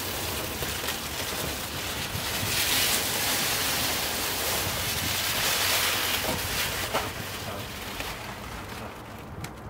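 Rustling and crinkling of a large sheet of foil reflective insulation being handled and laid down, swelling twice and fading near the end.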